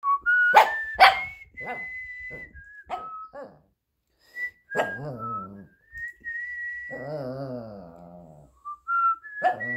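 A person whistling a slow tune while a Shih Tzu howls along. The dog gives short sharp cries about half a second and a second in, then a long wavering howl in the second half, with another cry starting near the end.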